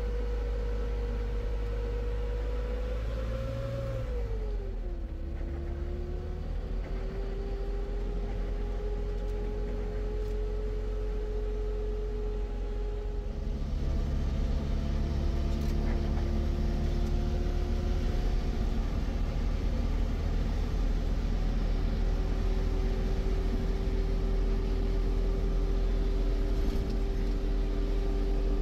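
A motor vehicle's engine running with a steady drone and low rumble. Its pitch drops about four to five seconds in, then creeps back up, and it grows louder about fourteen seconds in.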